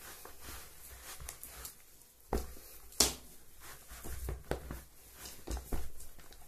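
Hands kneading and pressing a moist lump of fish-bait dough in a plastic bowl: soft squishing with irregular taps and thuds, and one sharp click about three seconds in.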